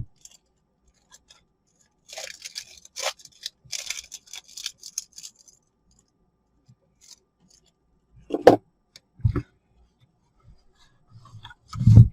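Packaging being handled: brief scratchy rustling and scraping for a few seconds, then a couple of short low knocks about two-thirds of the way in.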